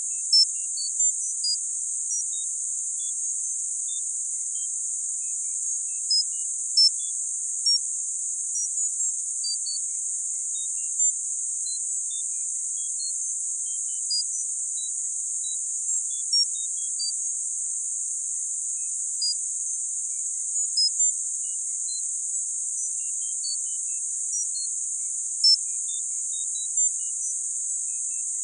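Synthetic tinnitus-masking sound: a steady, very high-pitched hiss with short high beeps at random pitches scattered irregularly through it, about one or two a second.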